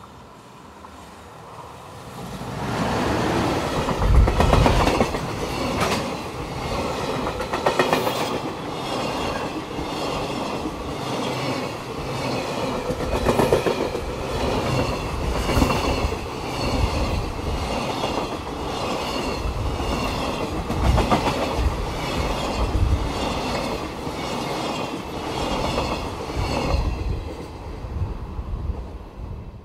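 JR Freight EF210 electric locomotive and its long train of container wagons passing close by. The sound builds about two seconds in, the wheels clack over and over as the wagons go by, and it falls away near the end.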